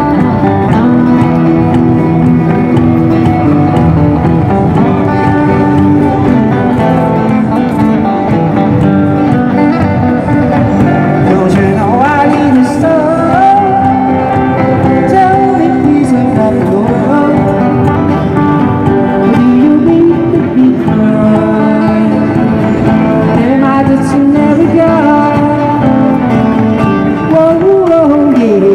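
Live band playing an oldies pop song on electric guitar and drum kit, with singing.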